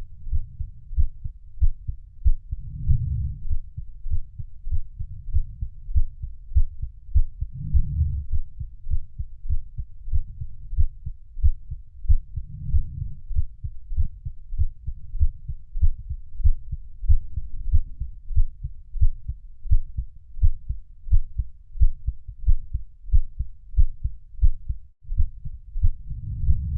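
Heartbeat: a steady rhythm of deep, low thumps that swells a little louder every few seconds.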